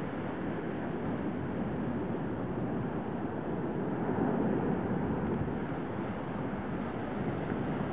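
Ocean surf breaking and washing up a sandy beach, heard as a steady rush of waves, with wind buffeting the microphone.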